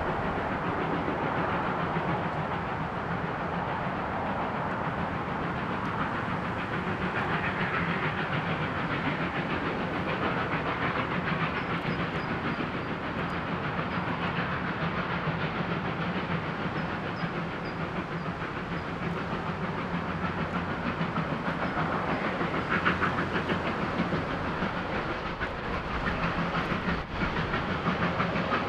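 Double-headed steam train approaching: the exhaust of two R-class Hudson steam locomotives working, a steady chuffing that grows a little stronger near the end as the train comes closer.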